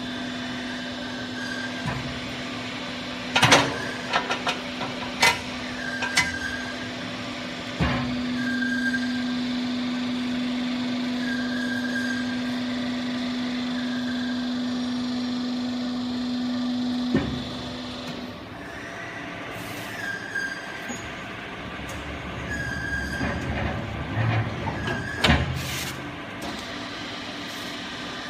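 Hydraulic cardboard baling press running: a steady motor-pump hum that swells in the middle and stops abruptly, with several metallic clanks and knocks from the press. A short chirp repeats about every second and a half throughout.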